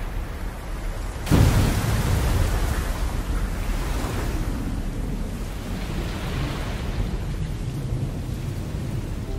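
Steady rain with a sudden thunderclap about a second in, which rumbles away slowly over the following seconds.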